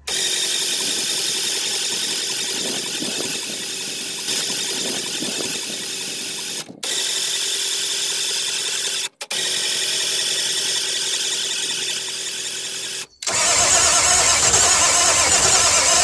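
A 1997 Ford F-350's 7.3 L Powerstroke diesel being cranked over by the starter without catching. The oil and fuel systems are still full of air. The sound breaks off abruptly three times, and the last stretch is louder and deeper.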